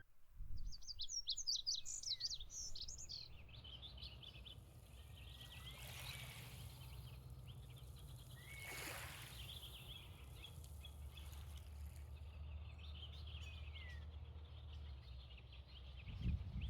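Outdoor shoreline ambience: small birds chirping busily, densest in the first few seconds, with a few short sliding calls scattered through, over a low steady rumble.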